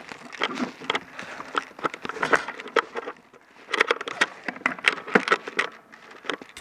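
Footsteps crunching through snow, with irregular sharp clicks and knocks of handling noise from the carried airsoft rifle.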